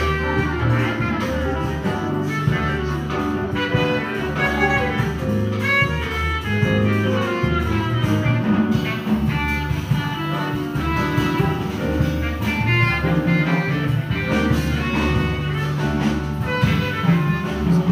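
A small jazz band playing live, with a horn section of saxophones and trombone over piano, bass and drums.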